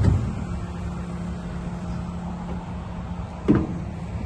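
Bobcat T76 skid steer's 74 hp diesel engine running steadily, with a single knock about three and a half seconds in.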